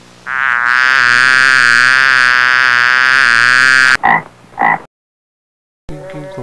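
A frog croaking loudly: one long, pulsing croak lasting about four seconds, then two short croaks about half a second apart.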